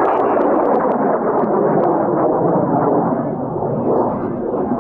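High-power rocket motor burning after lift-off: a loud, steady rushing noise that eases off slightly near the end.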